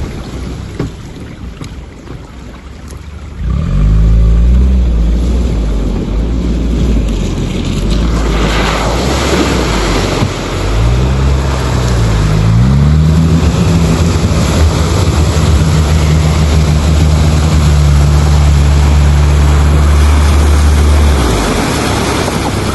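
All-terrain vehicle's engine running. It is quiet at first, then revs up about three and a half seconds in. The pitch dips and climbs again a few seconds later, holds steady under load, and eases off near the end.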